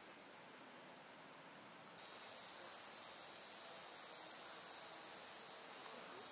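Steady, high-pitched insect chorus that starts abruptly about two seconds in, after a faint hiss.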